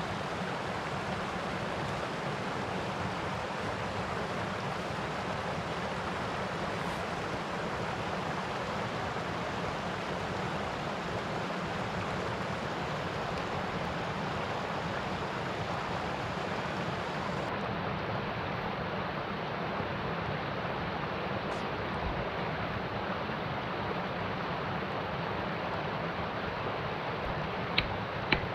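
Mountain stream rushing steadily over rocks. Near the end come two sharp knocks as wood is chopped on a stump.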